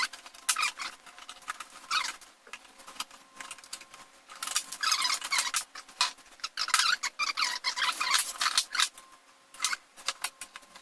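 Small nails being pried and pulled out of an old wooden mirror frame to free its backing: irregular scraping, squeaking and sharp little clicks, coming in clusters.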